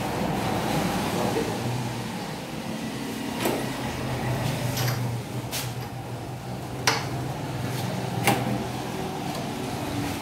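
Hand tools and diesel injection pump parts knocking and clinking on a steel workbench during disassembly: about five short sharp knocks spread through the middle, over a steady low hum.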